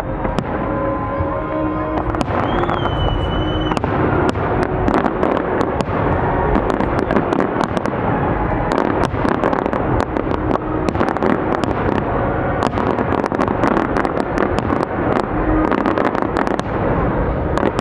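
Fireworks display: a continuous barrage of bangs and crackling from bursting shells, several reports a second with no let-up.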